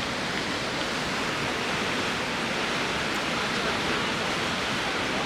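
Waterfall and rushing river water, a steady, even rush of noise.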